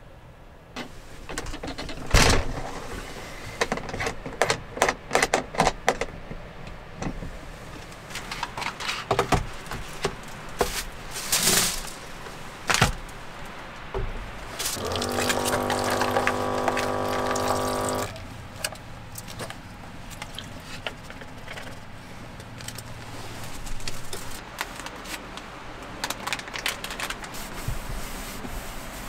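Groceries and plastic bags being handled and set down on a wooden table in a small camper cabin: a run of sharp clicks, knocks and rustles, with a steady hum lasting about three seconds around the middle.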